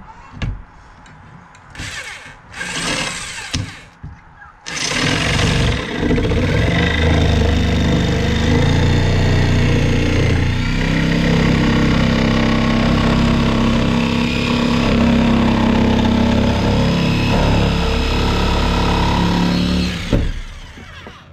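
Power tool motor running steadily for about fifteen seconds, after two short bursts of it a couple of seconds in.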